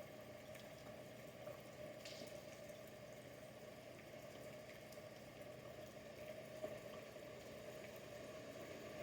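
Near silence: a faint steady hum with a few faint clicks.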